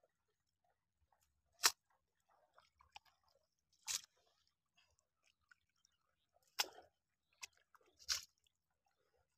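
Hands squelching in wet mud while picking up small stranded shrimp and fish: four short wet squishes a couple of seconds apart, with faint crackling between them.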